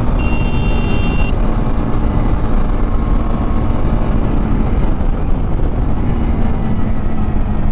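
KTM 390 Adventure's single-cylinder engine running at road speed, under a steady low rumble of wind and road noise. A brief high-pitched tone sounds for about a second near the start.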